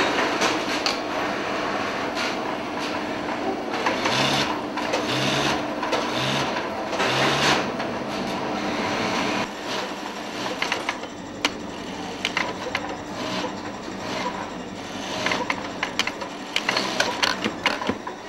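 Industrial single-needle lockstitch sewing machines stitching in stop-start runs, with sharp clicks and ticks from about ten seconds in.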